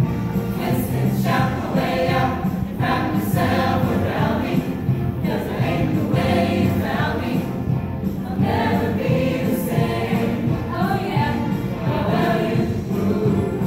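A choir singing a song with accompaniment, many voices together, sustained and continuous.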